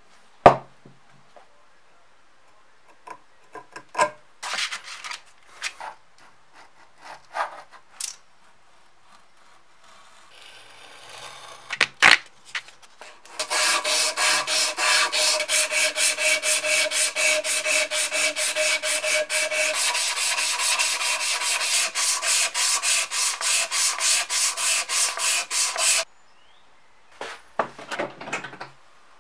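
A strip of sandpaper is pulled back and forth around a wooden hammer handle held in a vise, rubbing in quick, even strokes about four times a second for some twelve seconds. Before it come scattered clicks and knocks, loudest at the start and about twelve seconds in.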